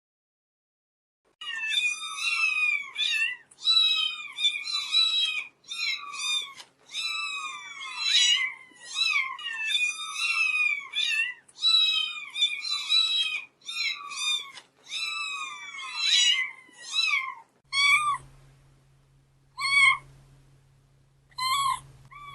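Kitten meowing, a fast run of short high-pitched cries that fall in pitch, which thins out to a few spaced meows near the end over a steady low hum.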